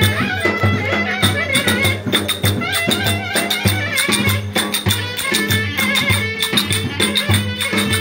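Turkish folk dance music (oyun havası): a wavering, ornamented melody over a steady, evenly pulsing drum beat with bright percussion strokes.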